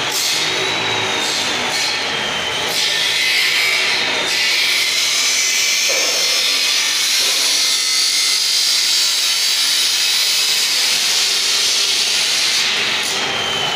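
Angle grinder cutting steel: a loud, steady grinding hiss with a thin whine that slowly drops in pitch over the first few seconds.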